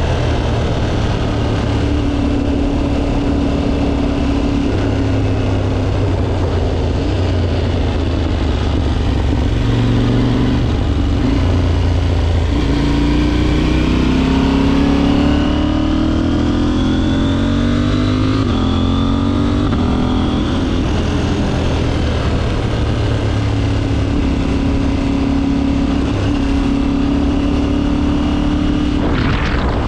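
KTM 790 motorcycle's parallel-twin engine running under way. It holds a steady pitch, rises as it accelerates through the middle, then drops back to a steady cruise.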